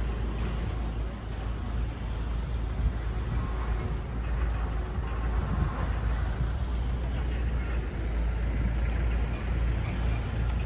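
Steady outdoor road-traffic noise with a constant low rumble.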